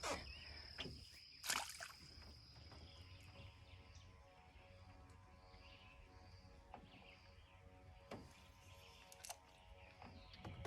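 Near-quiet lake ambience: a faint low hum and faint high chirping, with a few short light knocks about a second and a half in and again near the end.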